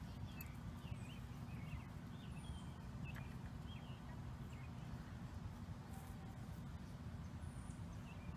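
Faint outdoor ambience: small birds chirping now and then over a steady low rumble.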